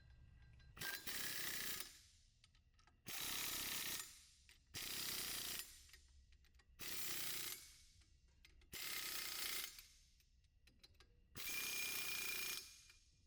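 A power tool runs in six short bursts of about a second each, driving in the red-Loctited 22mm bolts that hold the wheel spacer to the dually spacer.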